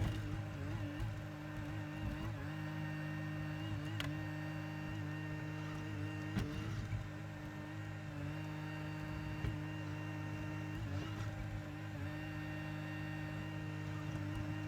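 2021 Bobcat E42 mini excavator's diesel engine running at a steady speed while it digs, with a couple of sharp knocks about four and six seconds in.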